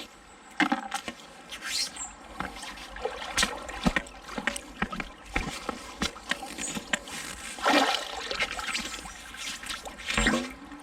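Shallow river water splashing and trickling around a fishing magnet on a pole as it is worked in the water, with irregular sharp clicks and knocks throughout.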